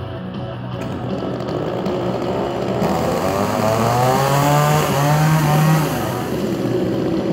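Small two-stroke chainsaw engines running; about three seconds in one is revved, its pitch climbing and growing louder, then it drops back to idle near six seconds.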